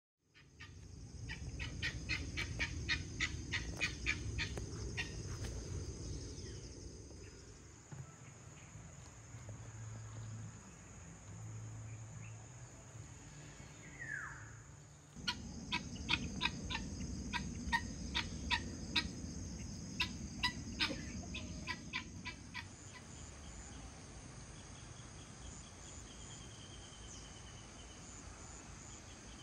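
Outdoor nature ambience: a steady high insect drone with birds chirping in quick runs, over a low rushing background. The mix changes abruptly a few times.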